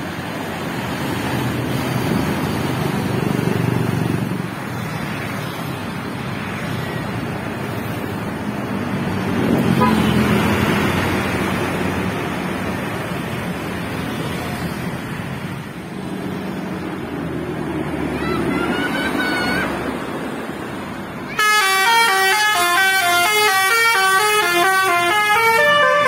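Road traffic and passing buses for most of the stretch. About twenty seconds in, a tour bus's basuri telolet horn starts playing a melody, a quick run of stepped, pitched notes that is the loudest sound here.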